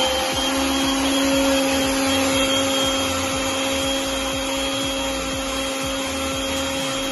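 Countertop blender motor running at speed 3, puréeing tomatoes, onion, garlic and beef stock into a soup base: a steady high whine over a liquid whir.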